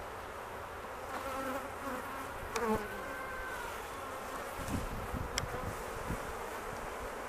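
Honey bees buzzing around an opened hive of a strong colony, single bees passing close with wavering, rising and falling buzz tones. Two sharp clicks, about two and a half and five and a half seconds in.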